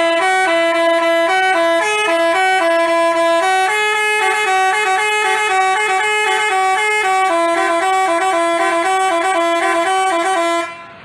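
A telolet 'basuri' musical horn plays a continuous melody of held notes, stepping up and down between a few pitches. It cuts off abruptly near the end.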